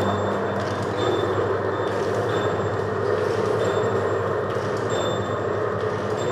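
Automatic vertical form-fill-seal sachet packing machine running steadily: a constant motor hum and mechanical rumble, with short high chirps recurring about every half second as it works.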